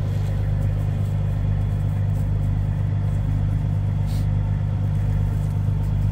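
Heavy wrecker tow truck's diesel engine idling with a steady low drone.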